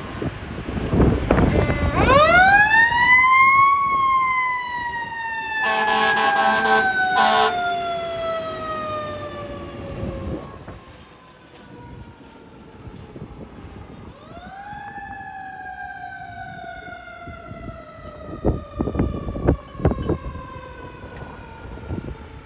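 Fire truck siren winding up and then slowly winding down, twice. Two blasts of the truck's air horn come during the first wind-down, and the truck's engine rumbles underneath. A few sharp knocks come near the end.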